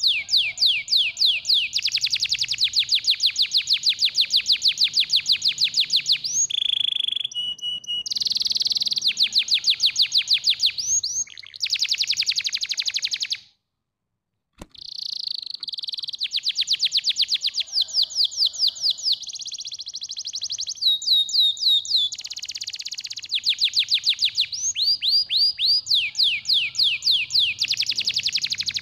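Domestic canary singing a long song of rolling trills: fast runs of repeated high notes, several a second apart in pitch and speed, with a few short held whistled notes. The song breaks off for about a second near the middle, then resumes.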